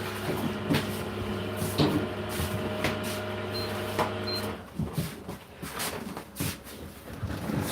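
A kitchen appliance motor hums steadily, then cuts off abruptly about four and a half seconds in, with two short high beeps just before it stops. Knocks and clatter of cupboards and crockery are heard throughout.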